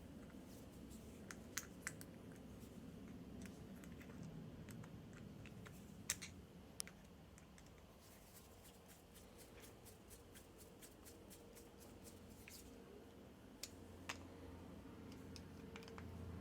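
Faint, scattered clicks and taps of small carburetor parts being handled during reassembly, over quiet room noise; the sharpest click comes about six seconds in.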